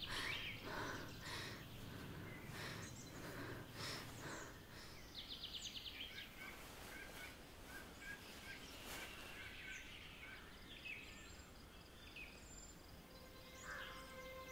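Faint forest ambience with birds chirping now and then, including a quick trill about five seconds in. Soft music fades in near the end.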